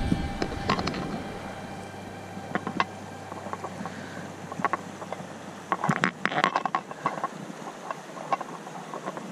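Shallow mountain stream running over a rocky bed, a steady rushing wash, with scattered short sharp sounds and a denser cluster of them about six seconds in.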